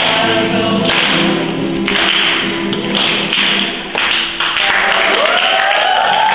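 A small group of girls singing the last lines of a song to acoustic guitar. About five seconds in, a rising whoop breaks in as the audience starts to cheer.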